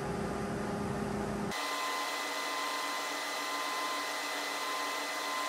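Steady machine noise from a DIY metal powder-bed 3D printer running a print. About a second and a half in, the sound changes abruptly: the low hum drops out and a steady high whine comes in.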